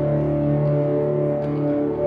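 Background music of low, steady held tones.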